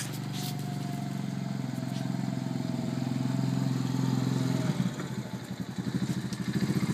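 Small engine of a ride-on vehicle pushing a homemade snowplow blade, running steadily and getting louder as it drives closer, then dropping to an uneven, chugging idle about five seconds in.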